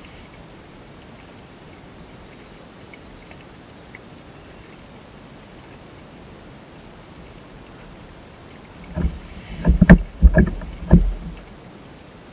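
A quick run of low thumps and knocks on a kayak, coming in a cluster about nine seconds in and lasting about two seconds, over a faint steady background hiss.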